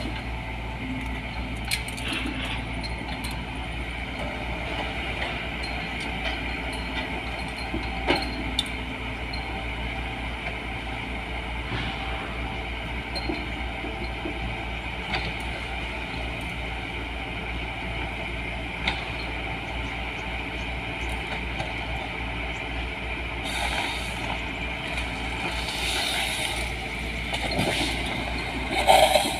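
LiuGong 915E excavator with a harvester head running steadily, its diesel engine droning, with occasional sharp clunks and a few short hissing bursts near the end.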